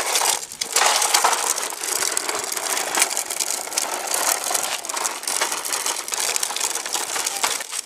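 Hard plastic wheels of a Fisher-Price toy push walker rolling over a gritty paved path, a continuous grinding rattle.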